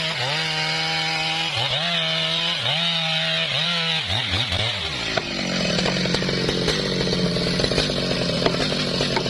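Two-stroke chainsaw running at high revs while cutting through a large tree, its pitch dipping briefly and recovering about once a second as the chain bites. About halfway through the sound turns rougher and noisier, with a steadier engine note.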